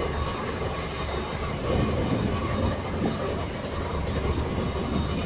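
Steady low rumble of a fishing boat's engine running, under an even wash of wind and water noise.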